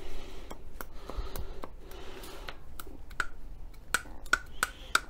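Irregular light clicks and taps of metal as a seized gudgeon pin is worked back and forth inside an MGB 18V engine's piston to free it.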